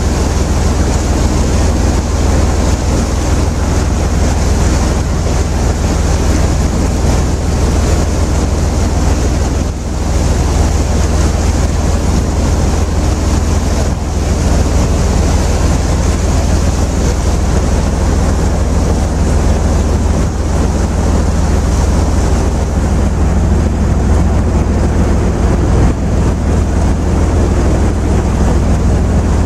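A river cruise boat's engine running steadily, with water rushing along the hull and wind buffeting the microphone as a constant low rumble.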